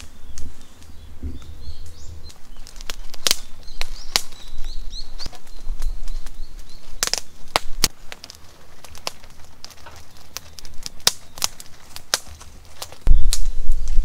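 Irregular sharp clicks and crackles, with faint bird chirps a few seconds in; a low rumble on the microphone comes in near the end.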